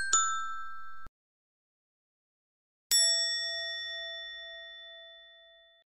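Bell-like chime sound effects. A ringing ding is cut off abruptly about a second in, and a single clear ding about three seconds in rings and fades away slowly.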